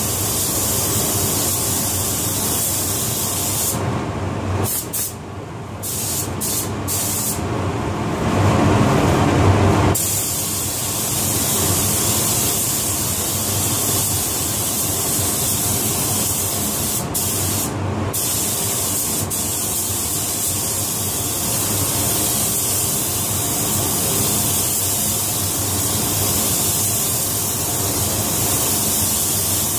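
Gravity-feed automotive spray gun hissing as it lays waterborne red basecoat onto a truck panel, the trigger released briefly a few times, over a steady low hum. A louder, lower rush of air peaks for about two seconds while the hiss stops, a third of the way in.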